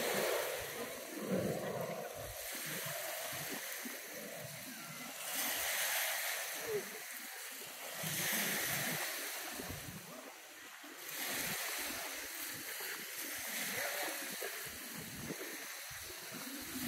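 Lakeshore ambience: small waves splashing at the water's edge, with people talking in the background.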